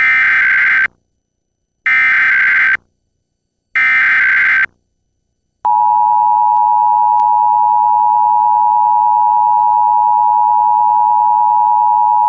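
Emergency Alert System tones. First come three short bursts of digital SAME header data, each just under a second long with about a second of silence between them. About five and a half seconds in, the steady two-tone attention signal of 853 and 960 Hz begins and holds.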